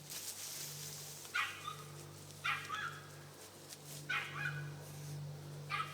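A small puppy yipping and whining in four short, high calls about a second or more apart, as if asking for attention, over a steady low hum.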